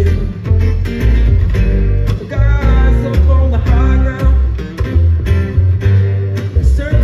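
Live acoustic string band music: an upright bass plucking strong low notes under two acoustic guitars picking and strumming.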